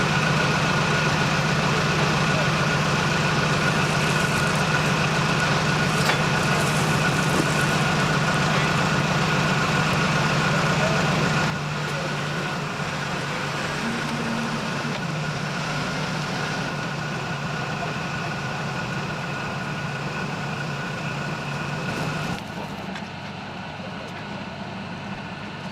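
A heavy vehicle engine running steadily, with a steady whine over it. The sound drops abruptly in level twice, a little under halfway through and near the end.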